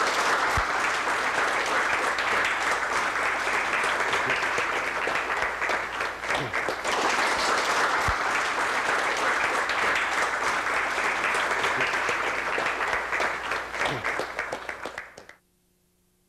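Audience applauding, dense and steady, then cut off abruptly about fifteen seconds in, leaving near silence with a faint hum.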